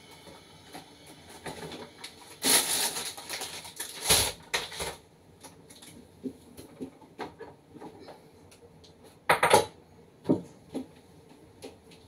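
Bottles, jars and plastic containers knocking and clinking against each other and the shelves as they are moved around inside an open refrigerator, in scattered clatters, the loudest about two and a half, four and nine and a half seconds in.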